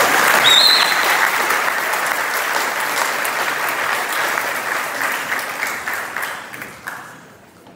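Audience applauding in a large hall, fading out near the end.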